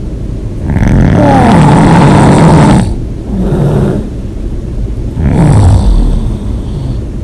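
A person snoring loudly in deep sleep. A long snore starts about a second in and lasts about two seconds, followed by a softer breath out, then a second, shorter snore a little past the middle.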